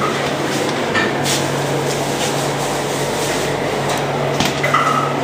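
Rubbing and handling noise on a handheld camera's microphone, with a few sharp clicks, over a steady low hum.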